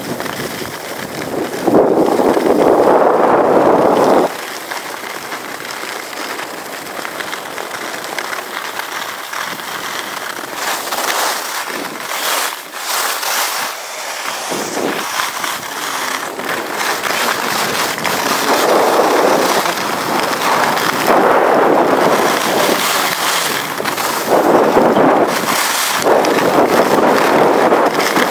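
Skis scraping and chattering over hard-packed snow while skiing downhill, with a rush of wind on the microphone that swells and fades in waves.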